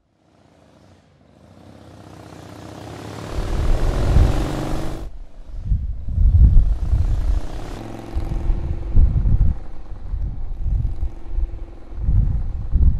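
Motorcycle engine that rises from silence in a swell for a few seconds and cuts off suddenly. It then runs on with uneven, repeated surges of throttle as the bike rides off.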